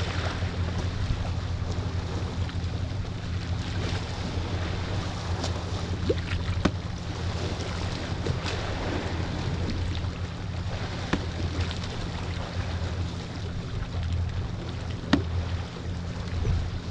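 Steady low drone of a boat engine running out on the water, over a constant hiss of wind and waves, with a few faint clicks.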